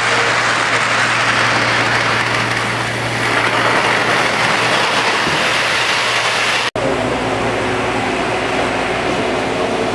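O-scale model freight train rolling along its track: a steady rushing rumble of wheels and motors. About two-thirds of the way through, the sound drops out for an instant and carries on with a steady hum.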